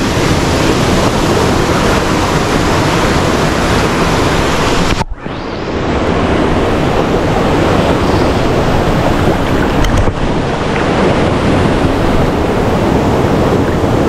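Rushing water of a rocky jungle stream and small waterfall, a loud, steady wash close to the microphone, with splashing as a man swims. About five seconds in the sound goes briefly muffled as the camera dips into the water.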